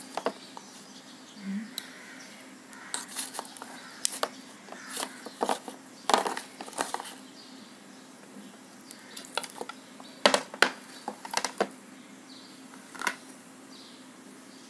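Kitchen knife scraping and knocking against a plastic tub while prising out slices of frozen kulfi: scattered sharp scrapes and clicks in two bunches, over a faint steady hum.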